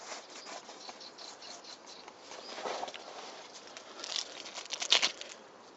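A hand rubbing and pressing on a nylon backpack's velcro patch panel: a run of soft scratchy crackles, loudest about five seconds in.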